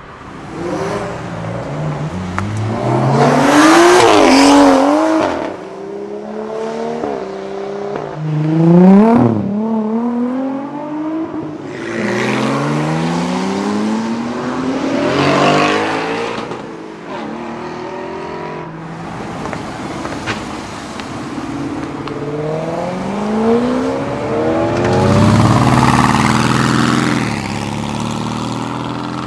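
A series of sports cars accelerating hard away one after another, each engine revving up through the gears with its pitch climbing and dropping back at the shifts. Each car swells and then fades, and the loudest comes about nine seconds in.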